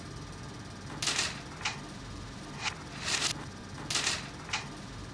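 Carrom striker and wooden carrom men clicking and clattering on a carrom board: three short noisy knocks, each followed about half a second later by a sharp click.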